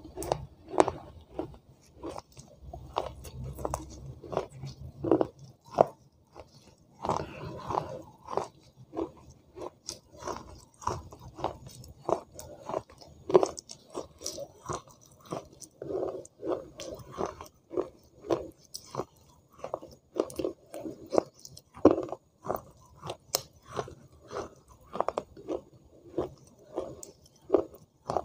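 A person chewing and crunching wet clay pot pieces, mouth-close: a steady run of crisp crunching chews, about one to two a second.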